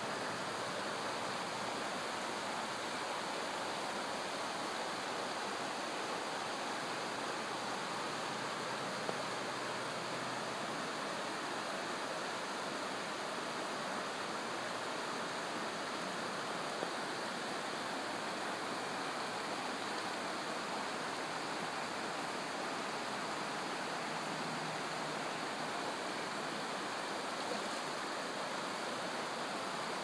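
Shallow river running over a cobble bed: a steady, unbroken rush of water.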